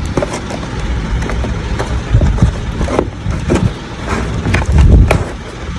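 Light clicks and knocks of hard plastic hair-curler barrels being handled in their box, over a steady low rumble.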